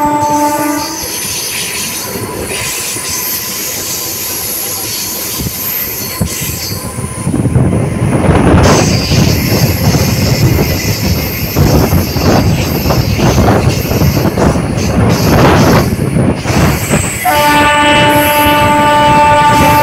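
Passenger train running, heard from an open coach door: the locomotive's horn sounds until about a second in, then the wheels rumble and clatter on the track, getting louder about seven seconds in. The horn sounds again a few seconds before the end and holds.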